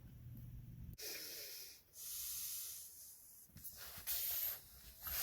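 Heavy, hissing breaths close to the microphone, several in a row with short pauses between them.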